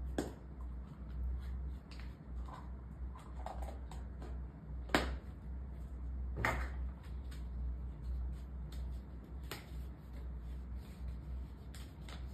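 Scattered light clicks and taps, a few seconds apart, over a steady low hum.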